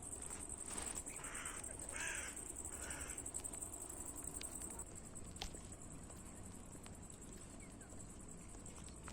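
Three or four harsh, cawing bird calls in quick succession during the first three seconds, over a steady high-pitched hiss.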